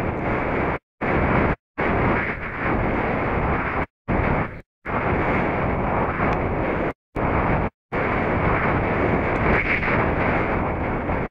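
Steady rush of wind over the camera microphone of a hang glider in flight, broken several times by brief dead silences where the footage is cut.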